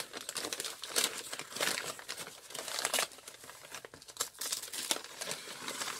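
Paper gift wrapping crinkling and rustling in irregular crackles as hands pull it open.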